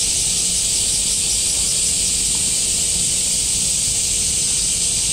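Loud, unbroken chorus of summer cicadas: a steady high hiss with no pauses.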